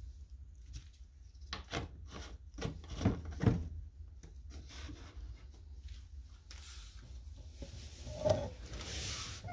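Handling noise of a plastic jug and a lidded plastic tank on a wooden crate: several knocks and clacks in the first half, the loudest two close together, then a longer scraping rub as the plastic jug is turned on the wood.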